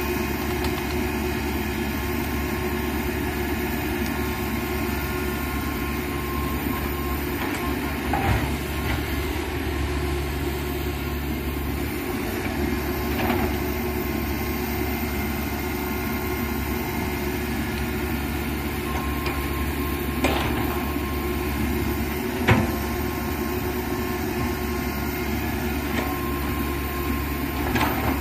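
Komatsu PC195 hydraulic crawler excavator's diesel engine running steadily as the machine works, with a few short sharp knocks from the working machine.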